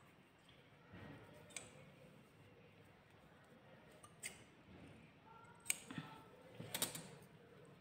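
Scissors snipping small cuts into the edge of a piece of cloth: about five faint, sharp snips at irregular intervals, the last two close together near the end.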